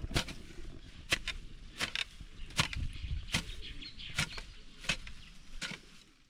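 A hand tool, hoe or machete-type, chopping into grass and soil at an even pace of about one stroke every 0.8 seconds, with rustling of cut grass between strokes. The strokes stop near the end.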